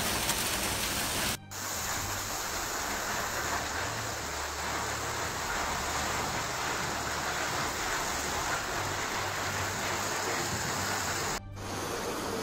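Heavy rain pouring down, a steady dense hiss. It drops out briefly about a second in and again near the end, each time followed by the same kind of steady rushing noise.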